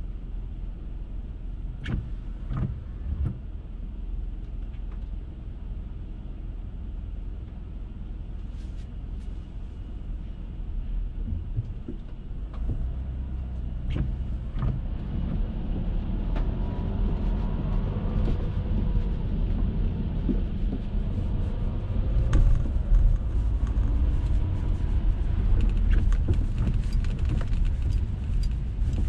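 A car driving on wet city streets: a steady low road and engine rumble that grows louder about halfway through, with a tyre hiss coming in near the end. Scattered short clicks and knocks sound over it.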